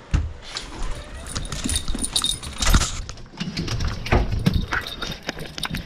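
Dog collar tags jingling and many quick clicks of dogs' claws and tags as dogs jostle close together at a door. A door latch being worked adds metal rattles.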